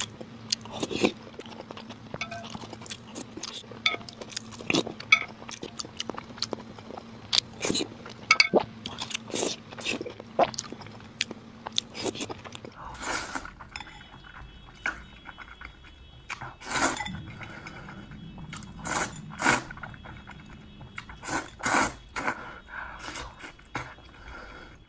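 Close-miked eating sounds: a spoon clinking against a ceramic bowl, with wet chewing and mouth smacks as boiled eggs soaked in sauce are eaten. About 13 s in, the background changes and the sounds become chewing of glazed sausages and noodles.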